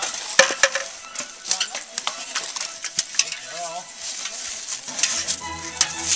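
Scattered sharp clicks and clatter with faint voices behind; music comes in about five seconds in.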